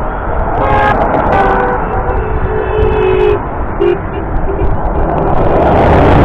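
Vehicle horns honking from passing traffic: several toots, the longest held about a second, over a steady rumble of road noise.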